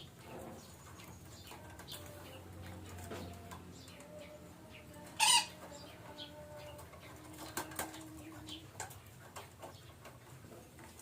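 Betet parakeets calling: scattered short calls, with one loud harsh squawk about five seconds in and a few sharper calls near eight seconds.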